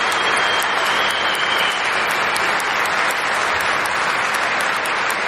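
A concert audience applauding at the end of a live song, with a long high whistle in the first couple of seconds.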